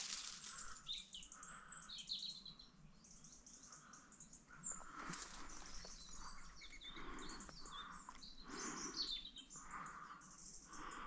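Small birds chirping and calling faintly: scattered short high chirps, with a softer call repeating about once a second.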